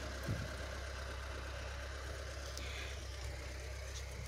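Car engine idling: a steady low hum, with a soft thump just after the start.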